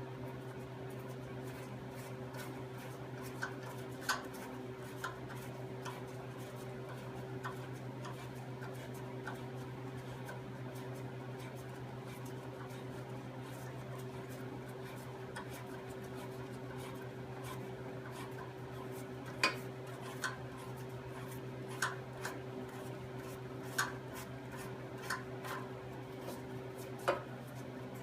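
Metal tools and parts clinking as they are handled and set down, a few sharp clinks at first and more often in the last third, over a steady low electrical hum.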